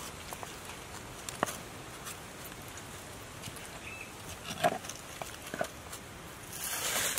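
Knife tapping and scraping on a wooden cutting board as a fish is gutted: a few scattered sharp taps and a short scrape near the end, over a steady quiet hiss.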